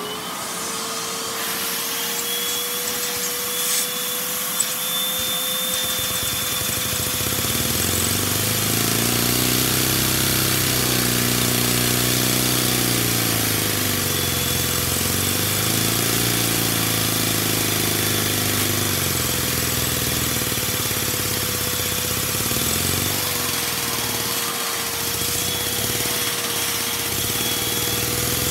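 A Lego vacuum engine running, driven by suction, over a steady high whine from the vacuum that powers it; the whine rises up to speed at the very start. From about six seconds in the engine's running note comes up and keeps speeding up and slowing down as it revs.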